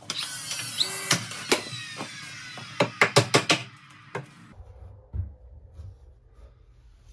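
Framing hammer knocking a wooden shim into a door jamb: a few separate blows, then a quick run of about five around the middle and one more after.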